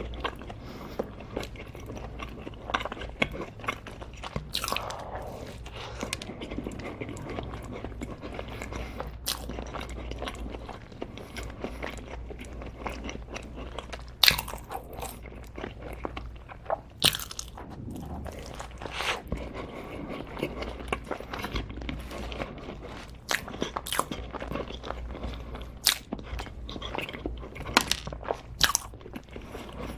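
A person biting and chewing crunchy food, with irregular sharp crunches throughout, the loudest about fourteen and seventeen seconds in.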